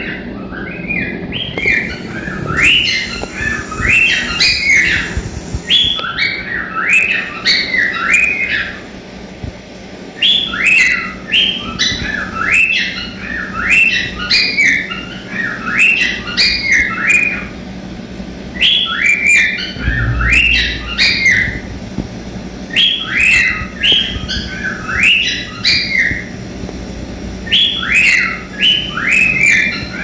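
Cockatiel singing its whistled song: phrases of quick warbling, up-and-down whistle notes, repeated in bouts with short pauses between them.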